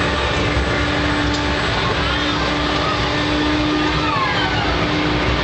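Spinning helicopter amusement ride in motion: a steady low hum over a loud, even rumble.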